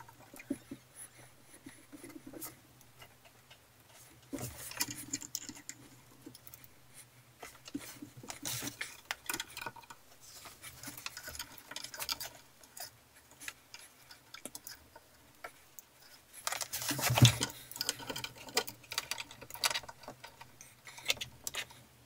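Scattered small clicks, taps and rustles of hands working cables and a hot glue gun against the aluminium grow-light fittings, with one louder knock about 17 seconds in.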